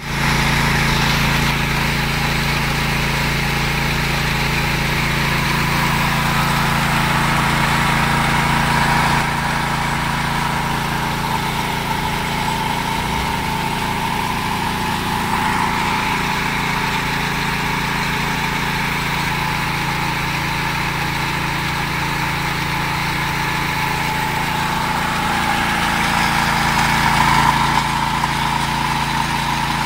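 15 hp gasoline engine running steadily at working speed, driving a grain auger that is conveying sorghum, with the hiss of grain rushing through the tube and pouring out.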